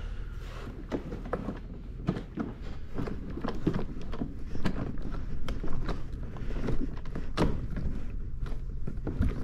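Hands pressing a rubber seal onto the plastic edge of a jet ski's engine-bay opening: irregular soft taps, clicks and rubs of rubber and plastic, with one louder knock about seven seconds in.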